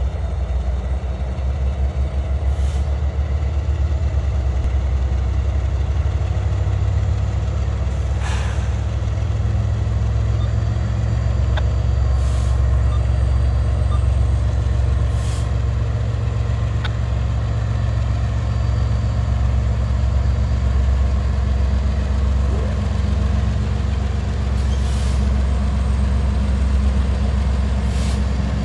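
Diesel locomotives of a Canadian Pacific freight train led by an SD70ACU, their EMD 710 two-stroke engines making a steady low rumble, with a few brief hisses.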